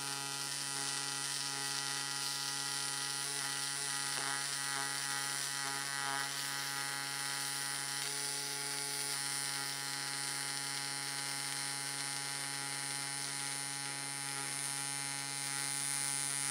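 Decapower UltraMIG 230 Pulse welder's pulse-mode MIG arc on steel at high amperage, a steady pitched buzz that holds unbroken through the bead.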